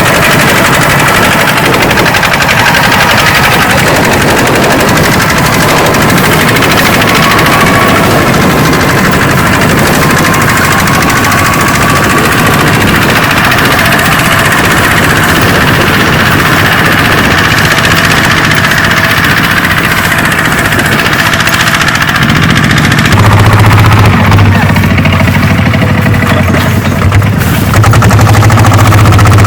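Rice combine harvester running, its engine and threshing machinery making a continuous rapid rattling clatter. Near the end a deeper, louder engine hum comes in.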